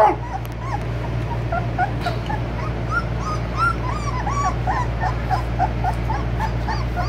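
Young American Bully puppies whimpering: a run of short, high squeaks, several a second, over a steady low hum.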